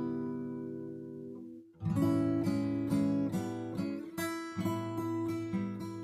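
Solo acoustic guitar playing a slow fingerpicked instrumental. A chord rings and fades away, breaks off briefly about a second and a half in, then picking resumes with a series of plucked notes over a held bass note.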